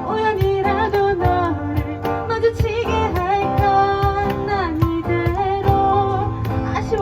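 Live band playing a pop song: a singer carrying a sustained, gliding melody over guitar, bass and keyboard, with cajon strikes keeping a steady beat.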